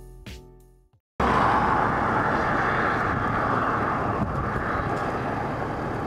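Background music with piano notes fading out, then, after a brief moment of silence, a steady rushing road noise of vehicles on a highway.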